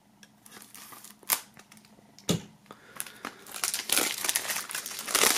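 Plastic shrink-wrap film being slit and peeled off a CD jewel case. Two sharp clicks in the first half, then continuous crinkling of the film, louder over the last two seconds.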